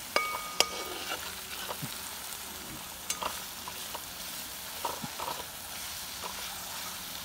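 Finely chopped onions sizzling as they sauté in hot oil, stirred with a metal spoon that scrapes and clicks against the pan. Near the start comes one sharp ringing metal clink.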